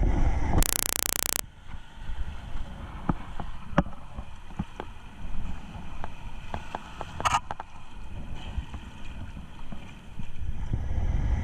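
Water and wind noise around a kayak on the lake: a steady low rumble with scattered clicks and small splashes. A loud burst of hiss lasts under a second near the start.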